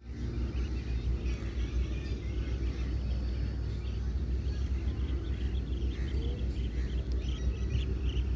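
Outdoor background noise: a steady low rumble with faint scattered higher sounds above it, starting abruptly out of silence.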